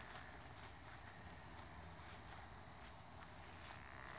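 Faint, steady high-pitched trill of night insects, with a few faint ticks.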